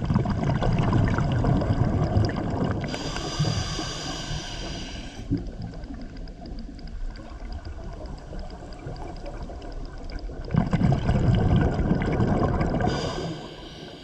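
Scuba diver breathing underwater through a regulator: a long stretch of exhaled bubbles burbling, then the steady hiss of an inhalation, twice over.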